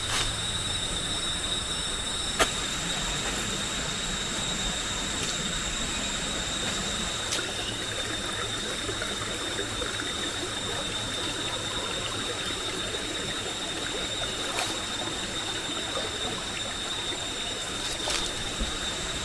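Steady rainforest ambience: an even hiss with a high, steady tone above it, broken by a few faint clicks, the sharpest about two seconds in.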